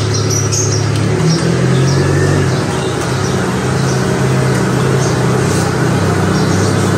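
Honda Civic engine running at low revs as the car is eased into the garage, its steady hum shifting pitch slightly a couple of times. Birds chirp lightly in the first second or so.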